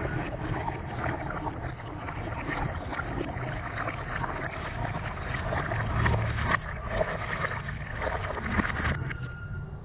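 Falling water splashing: a dense, continuous rush of small splashes over a steady low rumble.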